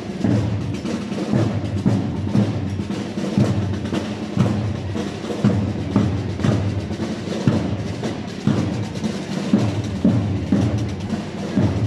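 Marching drums beating a slow processional march, with a heavy stroke about once a second.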